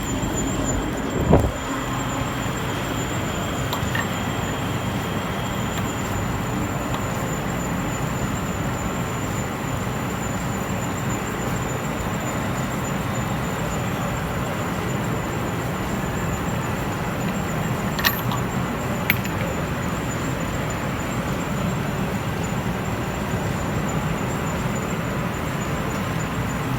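16K20 screw-cutting lathe running steadily, its motor and gearbox giving a constant machine noise. There is one thump about a second and a half in and two sharp clicks about two-thirds of the way through.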